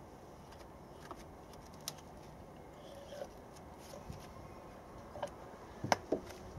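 Spark plug leads being pushed back onto the plugs of a car engine: scattered light clicks and knocks from the plug caps and the hands working around the cam cover. The two sharpest knocks come close together near the end.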